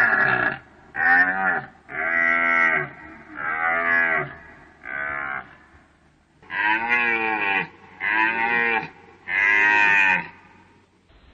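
Deer calling: about eight short calls, each well under a second, the pitch rising and falling within each call, with a pause about halfway through.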